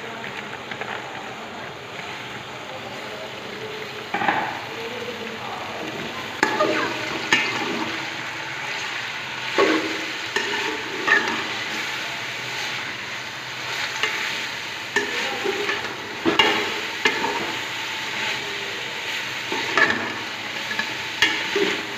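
Chicken, carrots and freshly added shredded cabbage frying in oil in a metal pot with a steady sizzle. From about four seconds in, a metal spoon stirs and scrapes against the pot again and again, roughly every second or two.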